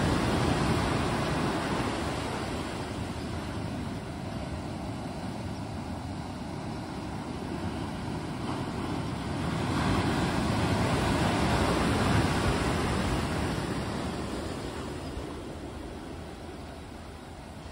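Ocean surf: waves breaking and washing up over sand and rocks in a steady rush, swelling loudest about ten seconds in and then fading away.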